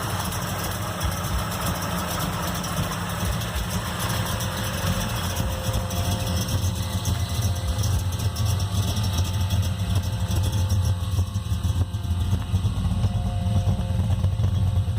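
Holden VB Commodore's modified engine idling steadily with a lumpy, slightly pulsing idle.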